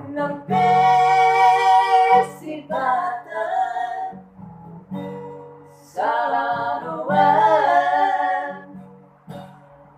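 A high singing voice holding long notes with vibrato over a strummed acoustic guitar. Two long held phrases, with shorter sung lines between them.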